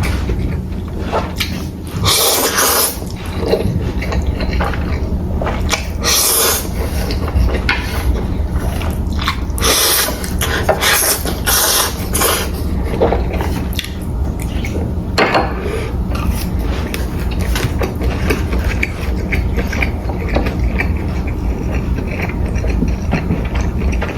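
Close-miked eating of jjapaghetti noodles and fried dumplings: chewing and slurping, with several louder noisy bursts about two, six, ten to twelve and fifteen seconds in, over a steady low hum.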